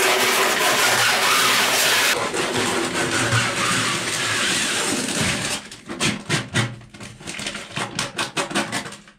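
Peel ply being torn off a cured epoxy-fibreglass laminate: a continuous ripping for about five seconds, then a run of short, separate rips and crackles.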